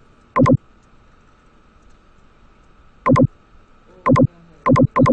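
Computer mouse button clicks, each a quick press-and-release pair, about five times at irregular intervals.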